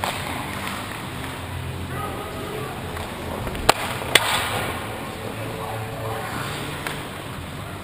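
Ice hockey rink sounds heard from the goalie's position: steady arena hubbub with faint distant shouts. Near the middle come two sharp clacks about half a second apart, the kind made by a stick or puck striking.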